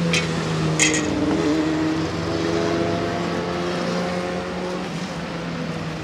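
A motor vehicle passing on the road and moving away: a steady engine hum that slowly grows quieter. Two short, sharp, high-pitched clicks come in the first second.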